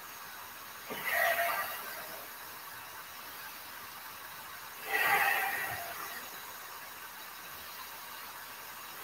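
A man breathing deeply in a slow rhythm: two long, audible breaths about four seconds apart.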